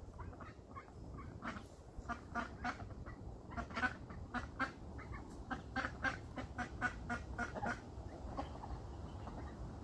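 Adult ducks quacking: a quick run of short quacks, about two or three a second, starting about a second and a half in and stopping about eight seconds in.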